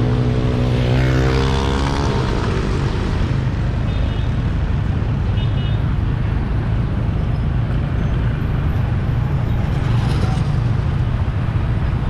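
Street traffic heard while moving through it: a steady low rumble of engines and wind noise. In the first two seconds one engine climbs in pitch as it speeds up.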